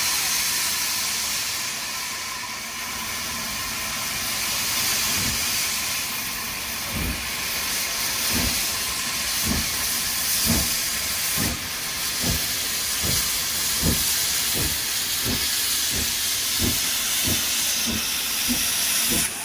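Saddle-tank steam locomotive WD 152 working a train: steam hissing from the open cylinder drain cocks throughout. From about five seconds in, its exhaust beats come in, slow at first and growing quicker as it gathers speed.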